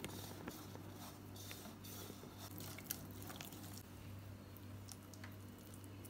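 Faint squishing and light clicks of a hand mixing a wet chili-powder masala paste in a stainless steel bowl and smearing it onto a fish, over a low steady hum.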